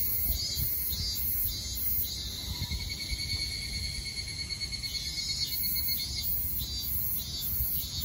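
Evening chorus of cicadas: overlapping high, pulsed calls repeating about twice a second, with a steady high drone through the middle and a low rumble underneath.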